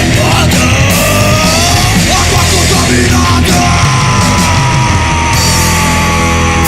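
Loud heavy punk-metal band playing: distorted electric guitar, bass and drums, with a long high note that slowly slides down through the second half.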